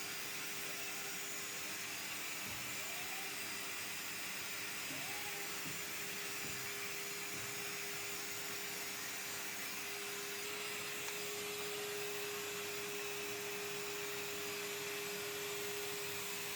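Ramtons wet and dry vacuum cleaner running steadily: an even rush of air with a constant motor whine. The owner finds it very slow and not pulling the dust even after cleaning it out, a sign of weak suction.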